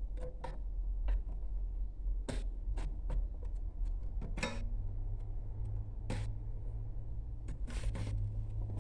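Scattered clicks and knocks of parts being handled and fitted on a stereo unit during reassembly, over a low steady hum that gets stronger about halfway through.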